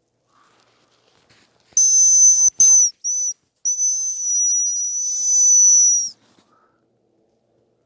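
Hazel grouse call whistle (a hunter's decoy) blown close by: a high, steady whistled note, two short notes, then one long held note.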